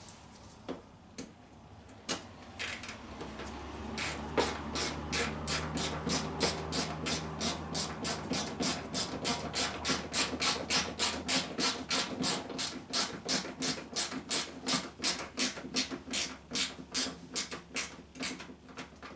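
Hand tool working at the joint between a plastic bumper cover and a car's fender: a few separate knocks, then from about four seconds in a steady run of short, sharp strokes, about three a second.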